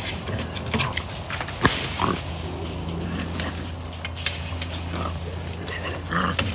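Cornered bobcat growling and hissing as keepers close in with catch nets, with a sharp knock about a second and a half in. A steady low machine hum runs underneath.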